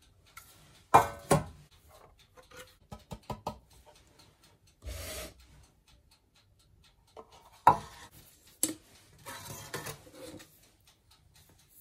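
Kitchen utensils and cookware being handled: a few sharp knocks and clinks, with short stretches of scraping in between.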